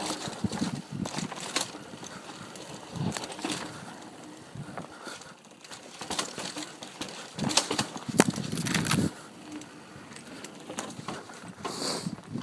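Mountain bike running fast down a dirt trail: tyre noise over the ground and irregular rattling and knocking of the bike over bumps, with the loudest burst of clatter about eight seconds in.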